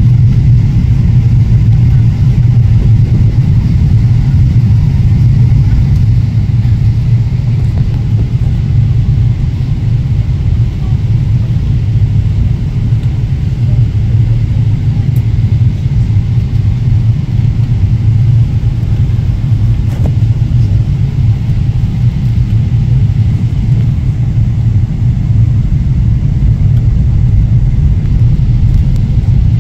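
Steady low rumble of engine and airflow noise inside a Boeing 777's passenger cabin during descent.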